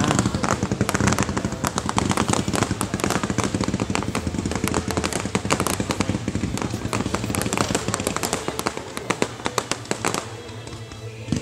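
Fireworks display: rapid crackling and many sharp bangs packed close together, thinning out and dying down about ten seconds in.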